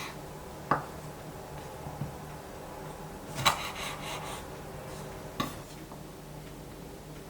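Kitchen utensils knocking and scraping against dishes: a few separate clinks, the loudest a short clatter about halfway through, over a steady low hum.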